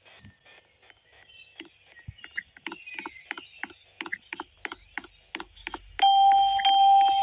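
A quick, steady run of clicks, about three a second, that grows louder. About six seconds in, a steady high electronic beep like a doorbell tone starts and holds over the clicks.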